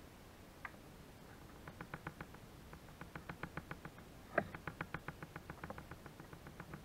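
A rapid series of light, sharp clicks, about four or five a second, with one louder click about halfway through.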